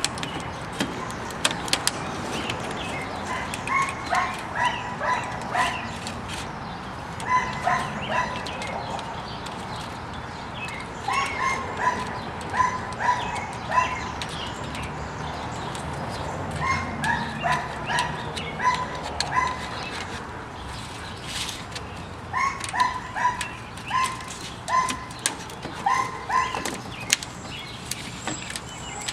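A dog barking repeatedly in bouts of several short barks about half a second apart, with pauses of a few seconds between bouts, over a steady background noise.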